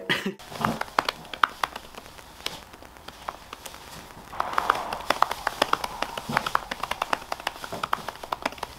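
Typing on a MacBook Pro keyboard fitted with a clear silicone keyboard cover: quick, irregular key clicks that grow busier about halfway through.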